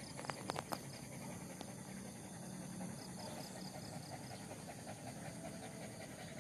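A dog panting steadily and quietly, with a few sharp clicks in the first second.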